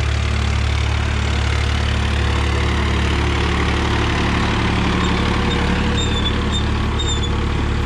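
Swaraj 963 FE tractor's three-cylinder diesel engine running steadily under load while pulling an 18-disc harrow through dry tilled soil.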